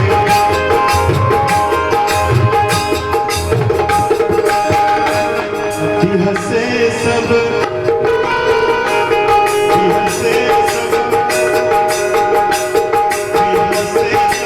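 Instrumental interlude of a live Bhojpuri folk band: tabla playing a quick, steady rhythm under long held melody notes.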